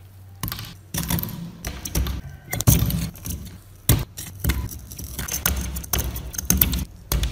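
A small metal scalpel blade scraping and chipping the thick rust crust off a heavily corroded lock: irregular gritty scrapes with sharp little cracks as flakes break away.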